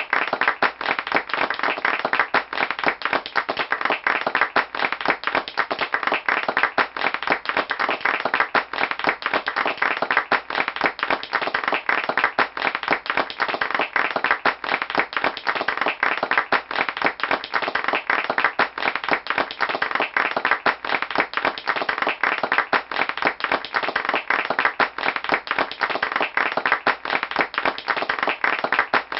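Audience applauding: many people clapping hands in a dense, steady stream of claps that holds its level throughout.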